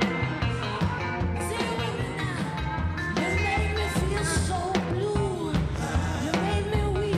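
Live blues band playing with a steady beat and bass. A woman comes in singing the melody a couple of seconds in.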